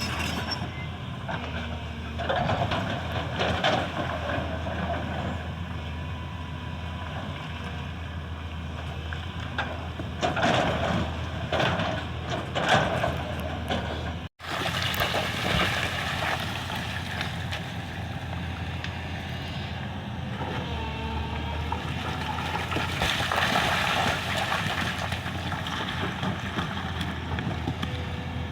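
Excavator's diesel engine running steadily under load, with bursts of rough scraping and clanking from the machine at work. The sound drops out for an instant about halfway through.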